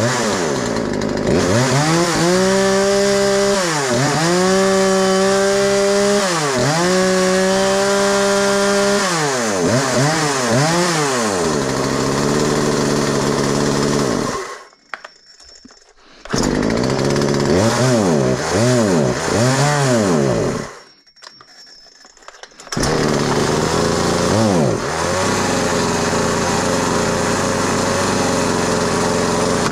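Craftsman 36cc Poulan-built two-stroke chainsaw engine revving up and down again and again, with throttle blips every couple of seconds, then settling to an idle with one more rev near the end. Twice it goes quiet for about two seconds, then runs again.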